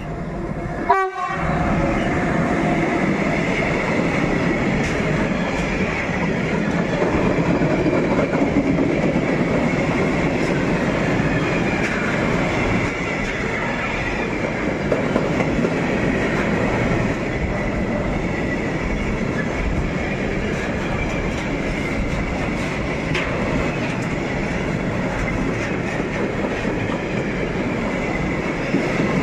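Freight train of tank wagons rolling past close by behind a Bombardier TRAXX class 186 electric locomotive. Its wheels make a steady rumble with a clickety-clack over the rail joints.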